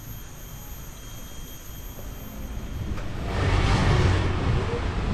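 Faint steady insect chirring for the first three seconds. Then a louder steady rush with a low rumble from a moving vehicle takes over.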